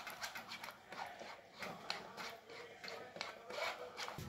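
A metal spoon scraping and rubbing curd through a mesh strainer in irregular scratchy strokes, several a second, to strain it lump-free.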